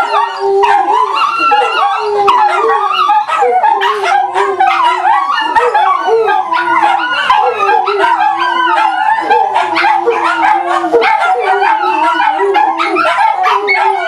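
A pack of dogs, a mastiff among them, howling together in chorus: long wavering howls at several pitches overlap, broken by quick yips and barks from the smaller dogs.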